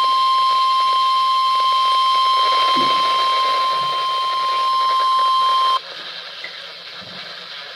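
NOAA Weather Radio warning alarm tone: a single steady, loud tone held until about six seconds in, where it cuts off abruptly, leaving a low radio hiss.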